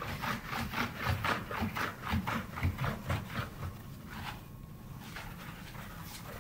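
Microfiber cloth wiping back and forth over marble tiles in quick rubbing strokes, about four or five a second, dying away about four seconds in.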